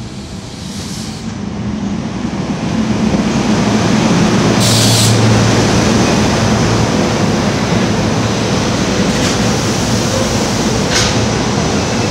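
A pair of SEPTA Silverliner IV electric railcars arriving at a station platform, their wheel and running noise growing loud over the first few seconds as they pull in, then steady as the cars run past. A brief hiss sounds about five seconds in.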